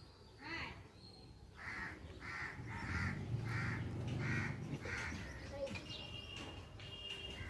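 A steady series of about seven harsh animal calls, roughly one every two-thirds of a second, followed near the end by a thin, high chirping tone.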